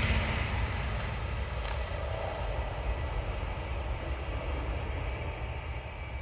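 An electric passenger train passing at speed, a rushing noise with a low rumble, loudest at first and fading slowly as it runs off into the distance.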